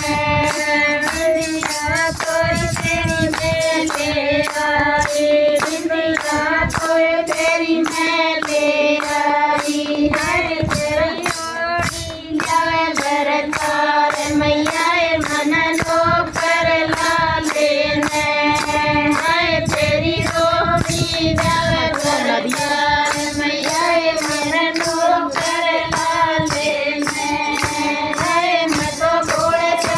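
Group of women singing a folk song together, with a steady beat of hand-clapping at about two claps a second.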